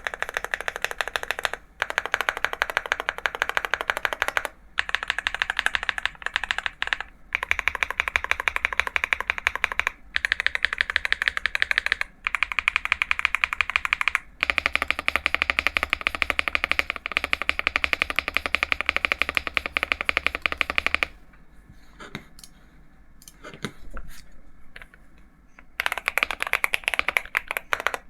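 Fast typing on a mechanical keyboard with Akko V3 Cream Yellow Pro linear switches, a rapid stream of keystroke clacks in runs with short pauses. Near the end the typing drops to a few scattered soft keystrokes for several seconds, then picks up fast again.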